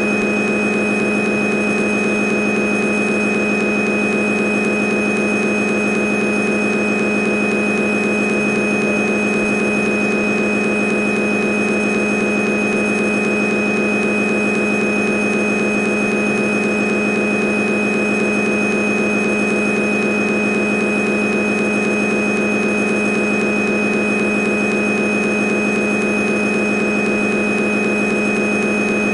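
CNC lathe running steadily during a boring operation: an unchanging mechanical drone with a constant high whine on top.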